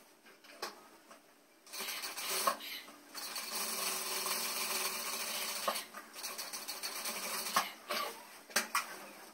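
Sewing machine stitching denim: a short run starting a couple of seconds in, a brief pause, then a longer steady run of about four and a half seconds, with clicks and rustles of the fabric being handled before and after.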